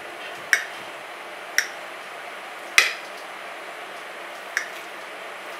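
Kitchen knife clicking against a ceramic plate four times, unevenly spaced, as its blade cuts down through soft steamed dal dhokla.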